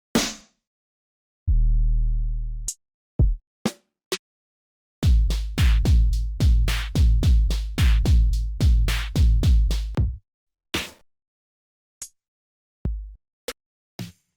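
Trap drum kit one-shot samples played one after another with gaps of silence: a cymbal-like hit, a long 808 bass note, then a run of about a dozen 808 bass hits over some five seconds, followed by a few scattered short percussion hits and a brief 808.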